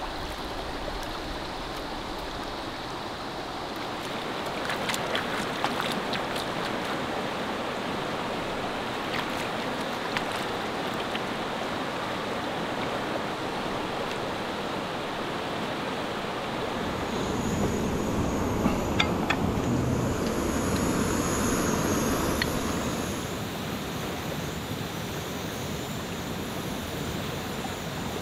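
A shallow, rocky river flowing and rushing as a steady wash of water noise. It grows louder and fuller for several seconds a little past the middle, with a few faint clicks and taps over it.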